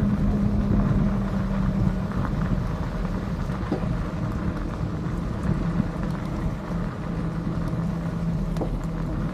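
A steady low motor hum over a constant rumble; its pitch dips slightly past the middle and comes back up near the end.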